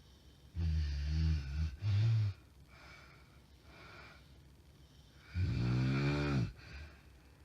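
A woman snoring in her sleep: a loud snore about a second long with a short snort right after it, about three seconds of quiet, then another long snore whose pitch bends near its end. The snoring is that of someone whose spouse takes it for sleep apnea syndrome.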